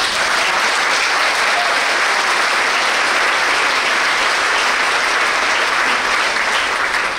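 Audience applause: many people clapping steadily, starting sharply and easing off near the end.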